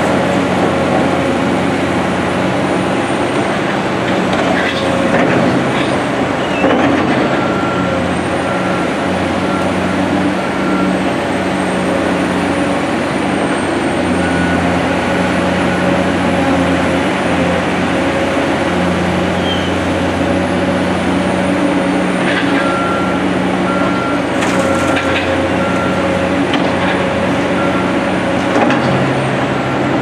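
Diesel engine of a CAT 345C hydraulic excavator running steadily, its note shifting as the hydraulics dig, swing and dump. A few knocks come as dirt and rocks drop into a steel dump trailer.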